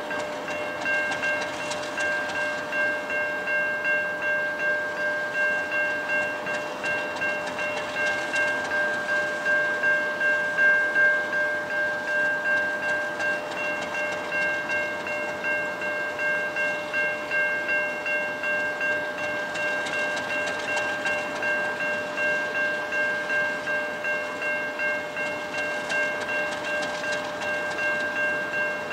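Diesel locomotive standing with its engine running, a steady high whine over a mild regular pulsing.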